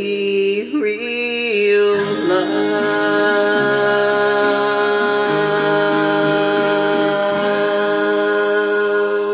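A woman sings the closing note of a late-1950s pop ballad into a handheld microphone over a karaoke backing track with a backing vocal chorus. The melody moves for about two seconds, then she holds one long final note over a sustained chord, and a high shimmering wash comes in at about the same time.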